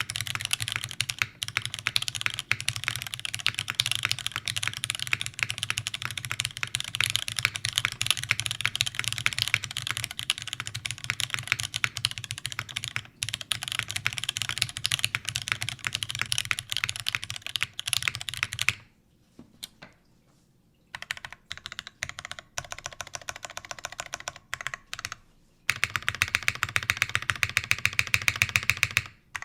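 Custom mechanical keyboard with lubed Cherry MX Black linear switches in a full aluminium plate and GMK keycaps, typed on fast. About two-thirds of the way through, the typing breaks off into a few scattered keystrokes with short silences. It then resumes near the end as a quick, very even run of key presses.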